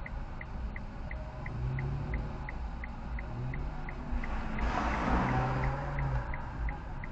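Inside a car idling at a stop in the rain: a low engine rumble with a steady light ticking about three times a second from the turn signal. Another vehicle passes about halfway through, its wet-tyre hiss swelling and fading.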